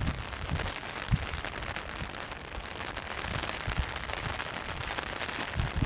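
Freezing rain falling on snow and ice: a steady hiss of many fine drop ticks, with a few low thumps, the sharpest about a second in.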